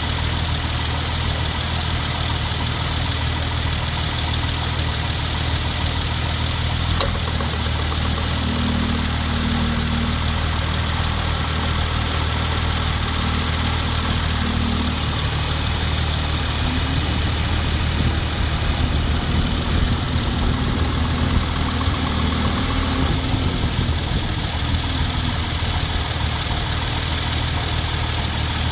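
Hyundai Genesis Coupe's 3.8 V6 idling; about seven seconds in something clicks and a loud knocking sets in, running for several seconds before it dies out. The owner suspects a belt-driven accessory or the A/C rather than the engine itself.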